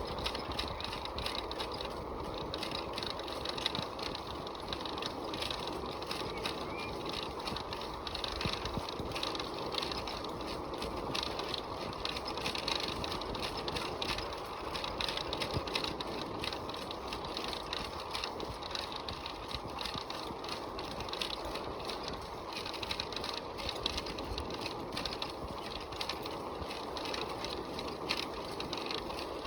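Bicycle being ridden, with steady rattling and many small clicks from the chain and frame.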